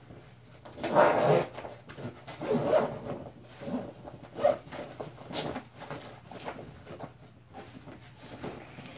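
Clothes rustling in irregular bursts as a jacket and other garments are handled, with a sharp click about halfway through.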